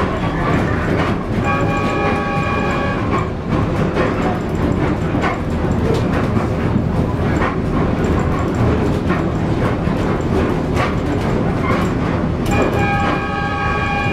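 AS1000 diesel railcar running along the track, heard from inside the cab as a steady engine and wheel rumble. Its horn sounds twice: a blast about a second and a half in, and another starting near the end.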